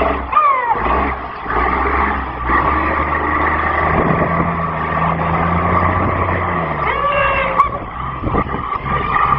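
A wheelstanding fire engine's engine running steadily as the truck drives off down the track, with brief spectator voices near the start and about seven seconds in.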